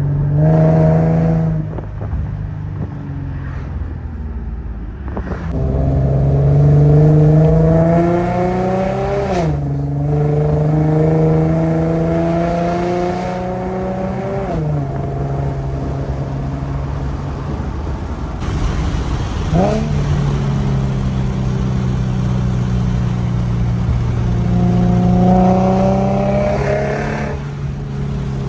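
Infiniti G37's V6 through a full Motordyne exhaust with art pipes, pulling through the gears. The note climbs steadily in pitch and drops sharply at an upshift about a third of the way in and again about halfway. There is a quick rev up and down about two-thirds in, and another climb near the end.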